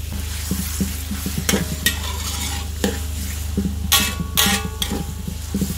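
A metal spatula stirs tomato wedges into a sizzling onion-garlic paste frying in oil in a metal wok, with scattered clicks and scrapes against the pan. The loudest scrapes ring out about four seconds in, over a steady low hum.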